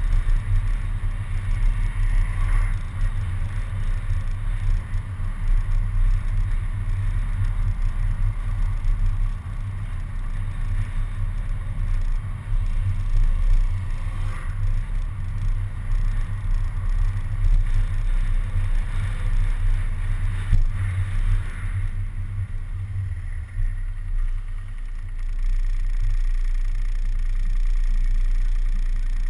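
City bus driving, heard through a camera suction-mounted on its front: an unsteady low rumble of engine, road and wind. About 25 seconds in the rumble turns smooth and steady as the bus stops at a red light and idles.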